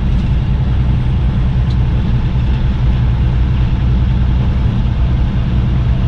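Steady low engine drone and road noise of a semi-truck heard from inside its cab while driving.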